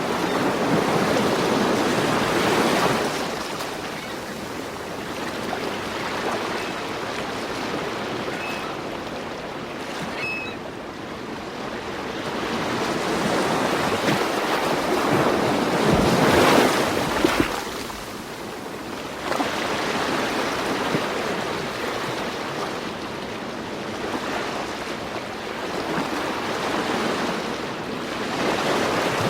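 Ocean surf: waves breaking and washing up, the rush swelling and fading every several seconds, with the loudest surge a little past the middle.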